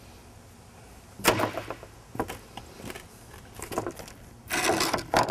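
A sharp knock about a second in, a couple of light clicks, then a longer scraping clatter near the end: a wooden board being handled and laid on concrete pavers.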